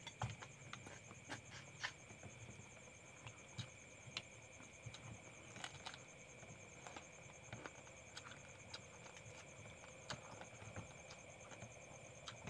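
Close-up eating sounds: short, scattered clicks and smacks as boiled crab shells are picked apart by hand and the meat and rice are chewed and sucked from the fingers, over a steady faint high whine.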